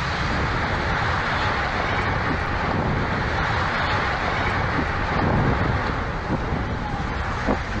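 Strong wind from a tornado close by, a steady rushing noise buffeting the microphone.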